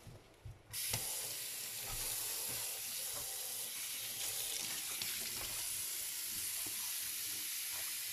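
Kitchen tap switched on about a second in, running steadily into a stainless steel sink.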